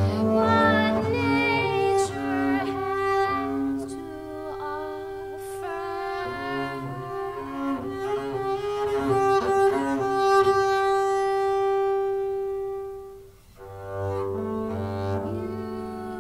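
Double bass played with a bow: a run of separate bowed notes, then one long held note that fades out about thirteen seconds in, after which bowed notes start again.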